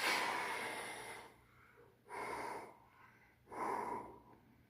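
A man breathing heavily close to the microphone: three loud, airy breaths, the first and longest lasting about a second, then two shorter ones about a second and a half apart.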